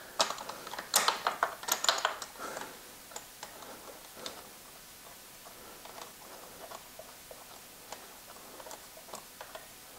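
Light metallic clicks and ticks of a spark plug socket and extension being turned by hand while a new spark plug is threaded into a motorcycle cylinder head. A quick cluster of clicks comes in the first couple of seconds, then only scattered faint ticks.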